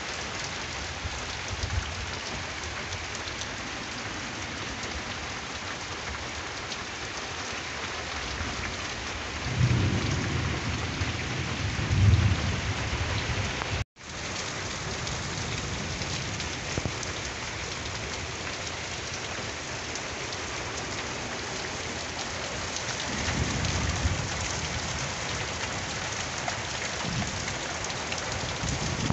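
Heavy rain falling steadily in a thunderstorm, with low rumbles of thunder swelling about a third of the way in and again later. A brief break in the audio near the middle.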